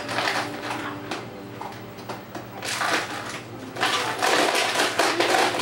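Crinkling and rustling in noisy bursts, a short one near the middle and a longer, louder stretch in the second half, over a faint steady hum.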